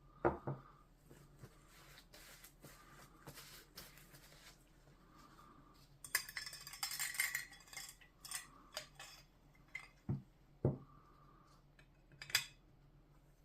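Small metal parts clinking and knocking as they are handled, with a couple of seconds of scraping about six seconds in.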